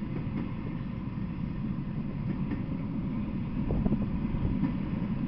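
Empty railroad flatcars rolling past on the rails: a steady low rumble of wheels on track, with a few faint clicks. It gets slightly louder after about three and a half seconds.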